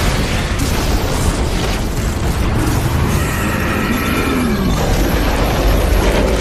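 Dramatic animation sound effects: a continuous deep rumble and booms with a dense wash of noise, under a dark musical score. A short falling tone, like a growl, comes about four seconds in.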